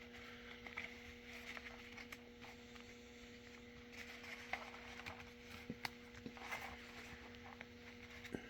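Faint rustling and small scattered clicks of Gore-Tex jacket fabric and baling wire being handled as the wire is worked slowly through a grommet hole, over a steady low hum.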